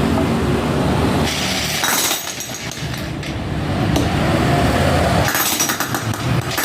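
Electric demolition hammer (jackhammer) being test-run after servicing, with metallic clinking and a stretch of rapid, even hammering strokes starting about five seconds in.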